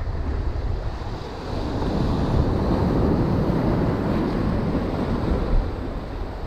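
Surf washing in over shoreline rocks, swelling about a second and a half in and easing off near the end, with wind rumbling on the microphone.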